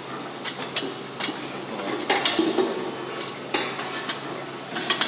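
Irregular metal clanks and knocks from a rear axle housing being worked into place on a pickup, with several sharp strikes, the loudest about two seconds in.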